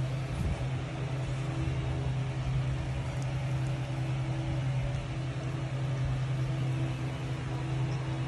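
A steady low hum, like a running fan or appliance, that goes on unchanged throughout.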